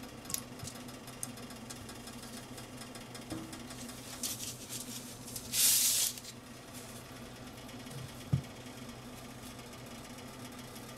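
Steady low hum. About five and a half seconds in comes a brief rustling burst of noise, and later a faint knock.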